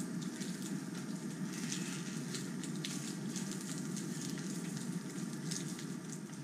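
Steady low background hiss with scattered faint clicks and crackles of small plastic as fingers work at the cap of a little food-colouring bottle.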